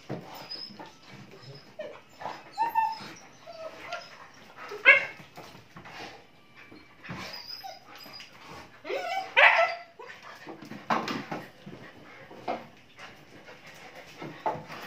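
German Shepherd puppies play-fighting, giving short yips, whines and small barks. The loudest, rising yelps come about 5 seconds in and again about 9 to 10 seconds in.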